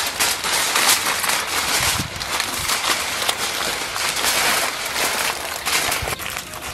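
Aluminium foil crinkling and crackling as hands fold and crimp its edges closed to seal a foil packet.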